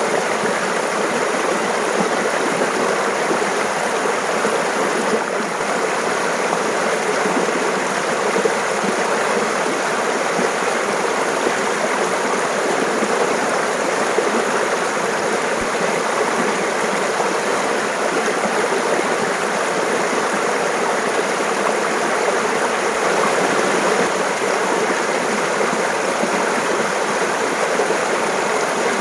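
Mountain stream running and splashing over rocks, a steady even rush.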